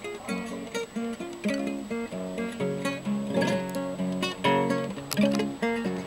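Acoustic guitar fingerpicked in Hawaiian slack-key style, with plucked bass notes under a melody line.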